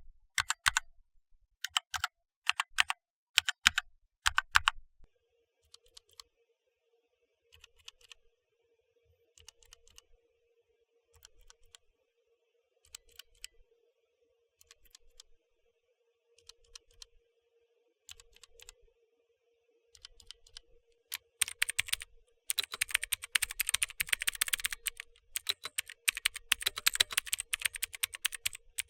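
Mechanical keyboard switches being typed on: first Kailh Red linear switches, with bursts of keystrokes and then sparser, softer presses. About twenty seconds in, fast, loud, dense typing begins on clicky Outemu Blue switches.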